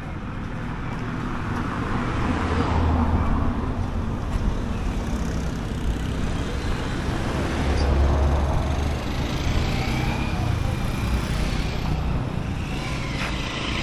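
Street traffic of cars and motorcycles driving past, with engines swelling louder as vehicles go by about three and eight seconds in.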